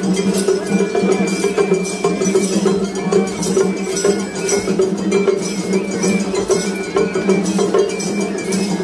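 Festival float hayashi band: a small hand gong clanging in a fast, steady rhythm, with a bamboo flute playing held notes over it.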